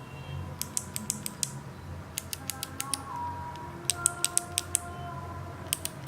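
Kailh BOX clicky mechanical keyboard switches being pressed in quick runs, four runs of about seven sharp, bright clicks each, with short pauses between them.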